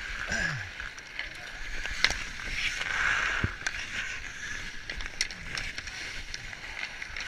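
Hockey skate blades gliding and scraping on outdoor ice, a steady hiss that swells about three seconds in, with scattered sharp clacks of sticks and puck.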